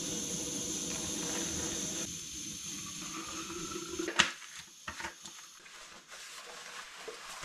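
Water heating on a stove: a steady hiss that drops away about two seconds in, followed by a few sharp clicks and knocks, the loudest about four seconds in.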